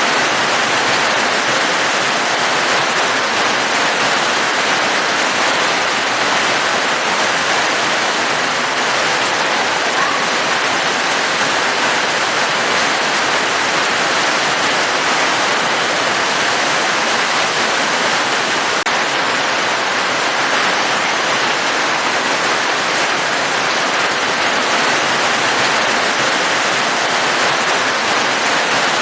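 Steady heavy rain: a dense, even hiss of falling water without let-up.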